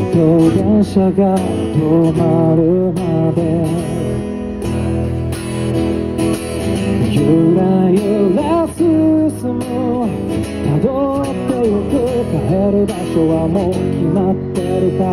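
A man singing into a microphone while strumming an acoustic guitar.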